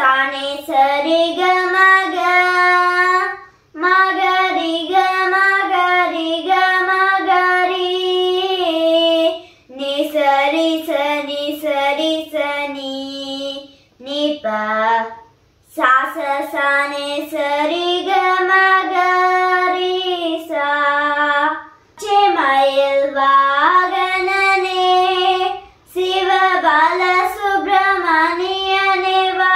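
A boy singing a vocal-lesson song: phrases several seconds long with held notes that bend and waver in pitch, broken by short pauses for breath.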